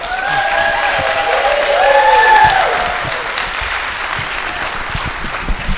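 Audience applauding, swelling to its loudest about two seconds in and then tapering off.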